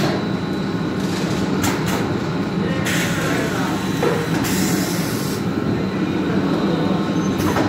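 Paint filling machinery running: a steady mechanical hum and rumble, with a few short clicks and a brief hiss about halfway through.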